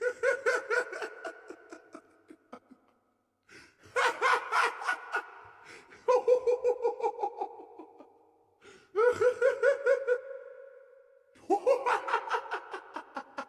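High-pitched ticklish laughter: a voice laughing in five bouts of rapid ha-ha pulses, each bout starting loud and trailing off before the next begins.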